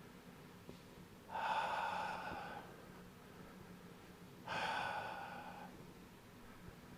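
A person breathing out audibly twice, about three seconds apart, each breath starting suddenly and fading over about a second, in time with slow swinging qigong movements.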